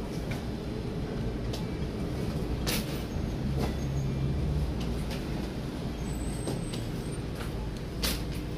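Steady low background rumble with a few sharp clicks and knocks scattered through it.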